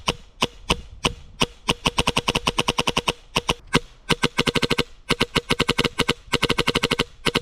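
HPA airsoft pistol firing semi-auto as fast as the trigger can be pulled: sharp shots in rapid strings of about ten a second, broken by short pauses.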